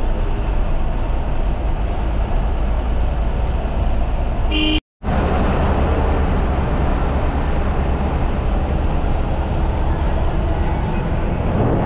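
Bus running on the road, heard from inside the driver's cabin: a steady, heavy rumble of engine and road noise. A short horn toot comes about four and a half seconds in, and the sound cuts out for a moment just after it.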